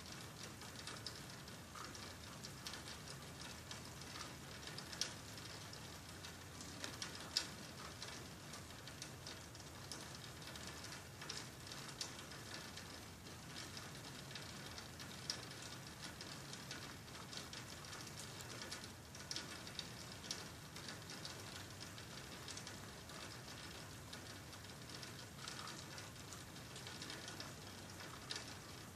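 Steady light rain, with many small irregular drop ticks and a few sharper single drips.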